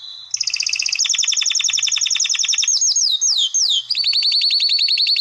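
Phone notification tone made of very fast, high, bird-like chirping trills, broken about three seconds in by a few quick downward-swooping chirps before the trill starts again.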